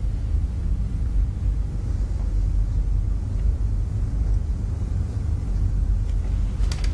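Steady low rumble of a film soundtrack's room ambience, with a couple of faint clicks near the end.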